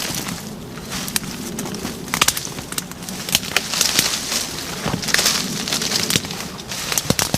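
Collins felling axe chopping branches off a felled tree: irregular sharp strikes amid crackling and rustling of twigs and foliage.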